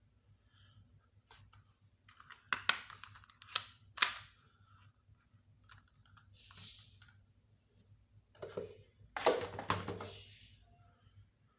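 Small plastic toy kitchen pieces being handled, clicked and set down. Two clusters of sharp clicks and taps come, a couple of seconds in and again near the end, with faint rustling between them.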